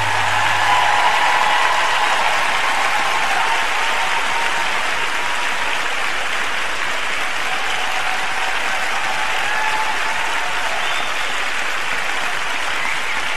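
A large arena crowd applauding steadily, with cheers heard above the clapping. A low held note of the program music stops about a second in.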